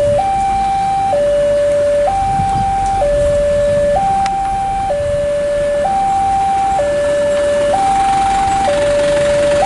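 Railway level-crossing warning alarm sounding: an electronic two-tone signal that alternates steadily between a lower and a higher pitch, each held just under a second, with a low rumble underneath. It is the warning that a train is approaching and the crossing barrier is down.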